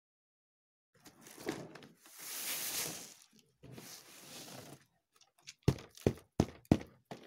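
Paddy grain poured from a woven bamboo basket onto a bamboo mat, a rustling hiss that swells about two seconds in. This is followed by a run of sharp knocks, about three a second, in the last couple of seconds.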